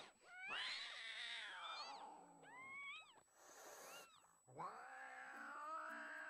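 Domestic cat meowing: a drawn-out meow about half a second in, then short rising chirps and a falling call, and from about four and a half seconds a long, steady drawn-out call.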